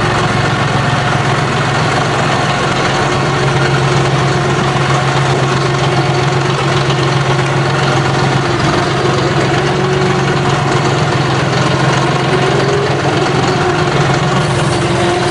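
John Deere 5075E tractor's diesel engine running at a steady idle, its low hum unchanging throughout.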